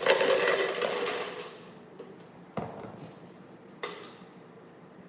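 Plastic sand toys and containers being handled: a burst of rattling and scraping, then two sharp knocks a little over a second apart.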